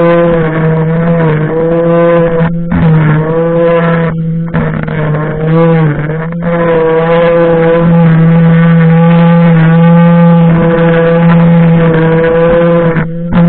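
Electric string trimmer with the motor in its head, humming steadily as its line cuts grass and weeds. The pitch sags briefly several times as the line bites into thicker growth, and the sound cuts out for a moment a few times in the first half.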